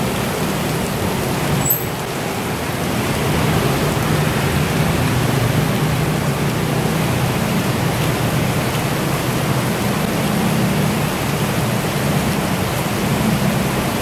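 Heavy rain falling: a steady hiss with a low hum underneath. A brief click sounds about two seconds in.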